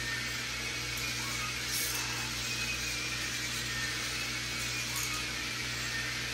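Several battery-powered K'NEX amusement ride motors running together with a steady whirring hum, with two brief light rattles from the moving rides, about two and five seconds in.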